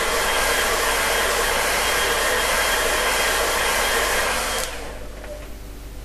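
Handheld hairdryer blowing steadily, a loud rush of air with a faint whine, switched off about four and a half seconds in.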